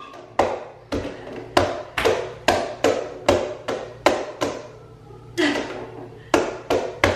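Hands tapping and slapping a granite countertop in a quick, steady rhythm, about two strokes a second.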